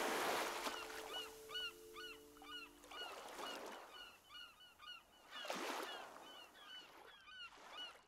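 A flock of birds calling in many short, quick chirps over swells of rushing noise, while a held music chord fades out about three seconds in.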